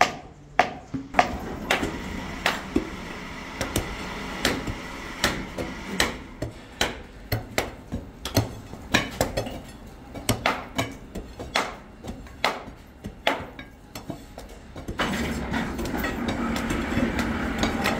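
Hand hammers striking a freshly cast iron lathe bed to break the sand mould off it: sharp, repeated knocks, about one or two a second. A steadier, louder background din comes in near the end.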